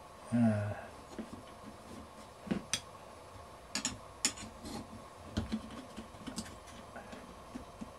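Scattered light clicks and metal clinks of hand work on an air compressor's fan belt and pulleys, as the belt is worked back onto the pulleys. A brief low voice sound comes about half a second in.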